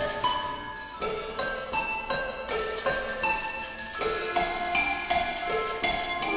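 Tuned handbells playing a melody, one ringing note after another a few tenths of a second apart. About two and a half seconds in, several bells are struck at once, louder, and keep ringing together as the tune goes on.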